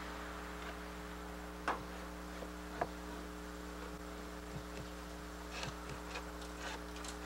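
Steady electrical hum, with two sharp clicks in the first three seconds and a scatter of faint ticks later, from a hand scraper working softened paint and stripper paper off wooden trim.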